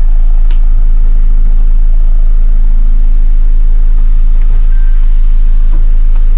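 Car engine idling, a steady deep hum with no change in pace.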